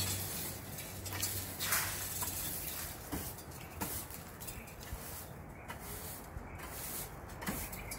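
Push broom sweeping leaves and debris on a roof: scratchy swishes, the strongest about a second and a half in, then fainter scrapes and a few light knocks.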